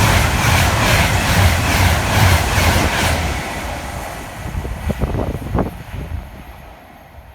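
Class 390 Pendolino electric train passing at high speed, its wheels beating over the rail joints in a fast, even rhythm. The sound dies away after about three seconds as the train recedes.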